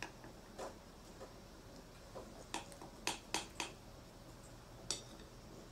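Metal spoon clinking lightly against a glass dish while cutting into a soft pudding: a few scattered clicks, a quick run of four in the middle, and one more near the end.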